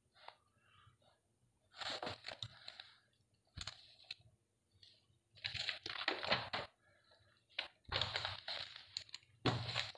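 Paper pages of a printed workbook rustling and crinkling as they are turned and handled close to the phone's microphone, in irregular short bursts.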